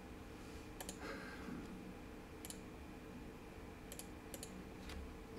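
Faint, scattered computer mouse clicks, about half a dozen, a few in quick pairs, over a faint steady hum.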